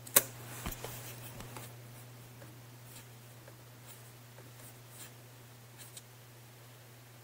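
Computer keyboard: one sharp keystroke about a quarter second in, a few lighter key clicks just after, then scattered faint clicks over a steady low hum.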